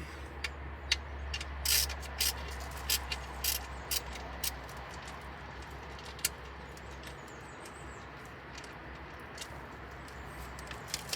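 Used engine oil gushing out of the drain under the car and splashing into a too-small bucket. A quick run of sharp clicks and knocks comes in the first few seconds, then a steady low rush.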